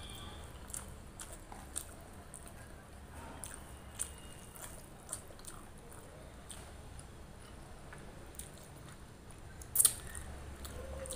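Close-miked chewing and wet mouth sounds of eating rice and curry by hand, with scattered small clicks and one sharper, louder click about ten seconds in.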